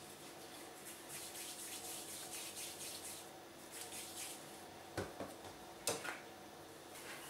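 Faint soft rubbing of hands rolling a piece of soft yeast dough into a ball, then two light knocks about five and six seconds in as the plastic dough scraper meets the countertop.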